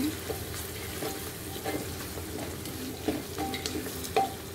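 Sliced onions sizzling in oil in an aluminium pressure cooker as a wooden spatula stirs them, knocking and scraping against the pot about five times, loudest near the end. The onions are frying to a light brown.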